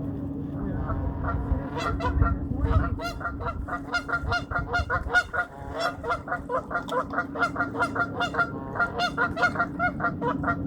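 A flock of geese honking, a racket of many short overlapping calls, several a second, that grows denser about two seconds in and keeps going.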